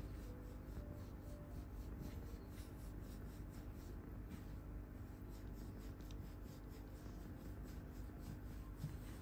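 A hand rubbing a cat's fur: a soft, rhythmic brushing, several strokes a second with a couple of short pauses, over a low steady hum.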